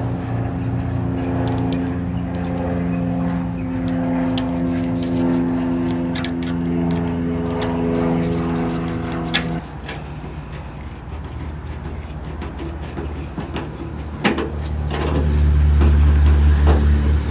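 A steady motor drone with an even pitch that cuts off abruptly about ten seconds in. A deeper, louder hum builds near the end. A few sharp metallic clicks come from a screwdriver working the fuel-hose clamp at the tank's sending unit.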